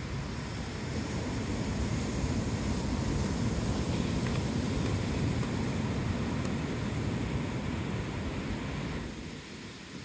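Ocean surf: waves breaking and washing up the beach as a steady rushing that swells over the first few seconds and falls away near the end, with wind buffeting the microphone.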